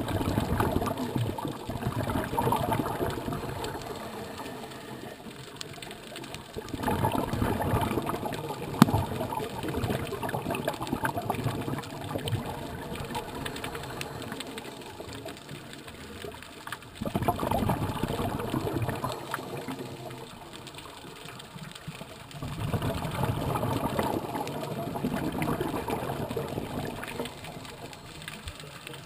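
Scuba diver's exhaled breath bubbling out of a regulator underwater: four crackling bursts of bubbles, each lasting two to four seconds, coming about every five to six seconds, with quieter gaps between while the diver breathes in.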